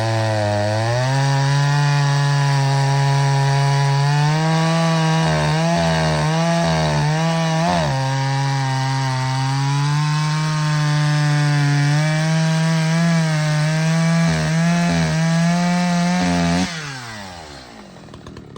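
Stock Echo CS-620P two-stroke chainsaw cutting firewood at full throttle, its pitch sagging and recovering as the chain loads up in the wood. Near the end the throttle is released and the engine winds down quickly toward idle.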